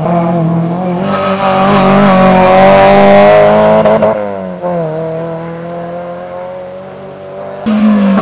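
Rally car engine running hard at high revs, growing louder to a peak about three seconds in. Its pitch dips about four seconds in, then the engine steadies lower and fades, before a sudden louder burst of engine shortly before the end.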